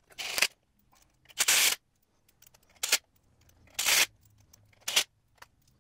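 Socket ratchet in short bursts of rapid clicking, five times, as it runs down the bolts holding the lower blower-drive pulley to the engine's crank hub.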